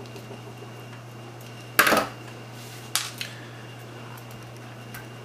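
Plastic case of a replacement power plug being opened by hand: a short loud scrape about two seconds in, then a sharp click a second later and a smaller click just after, as the housing slides apart.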